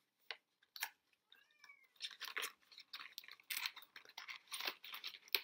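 Stiff plastic packaging of a boxed swimbait crackling and clicking irregularly as it is handled, busiest in the second half. A cat meows once, faintly, about a second and a half in.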